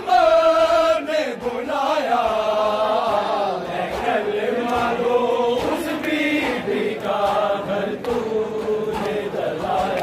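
Men chanting an Urdu noha, a Shia lament, in unison: long held, wavering sung lines.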